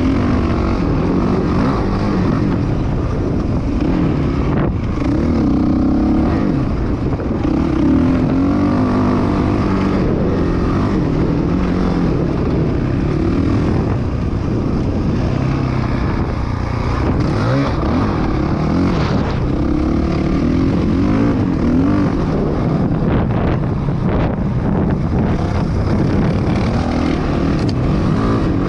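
Dirt bike engine running as the bike is ridden along a trail. Its pitch rises and falls again and again as the throttle opens and closes.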